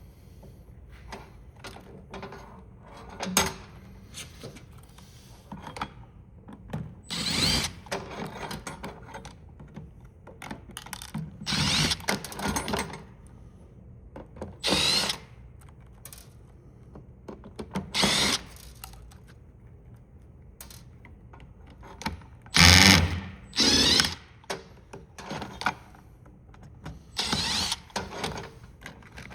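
Power screwdriver or small drill running in about seven short bursts, each half a second to a second and a half long, with its motor pitch shifting within each burst, as parts are unscrewed. Short clicks and knocks of plastic parts being handled fall between the bursts.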